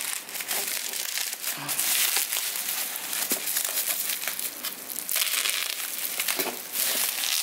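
Bubble wrap crinkling and crackling as hands pull it off a small boxed item, with louder bursts as it is gripped and bunched.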